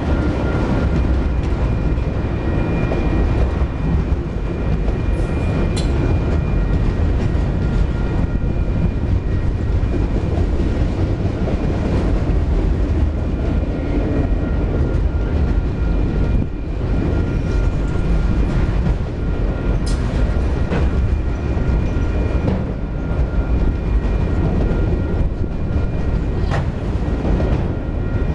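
Autorack freight cars rolling past close by: a steady rumble of steel wheels on rail, with a few sharp clicks and a thin, steady high squeal through much of it.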